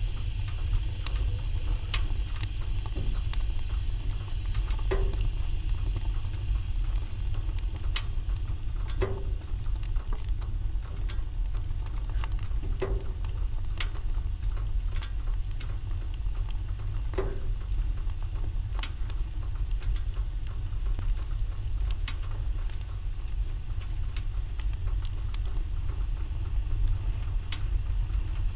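Wood fire in a fireplace crackling, with sharp pops at irregular intervals over a steady low rumble.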